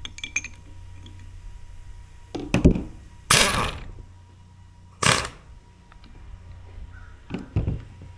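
Impact wrench hammering in two short bursts, the first lasting most of a second and the second shorter, as it tightens the drive-gear nut on a Vickers VTM42 hydraulic power-steering pump, with a few heavy thumps of handling the tool and pump around them.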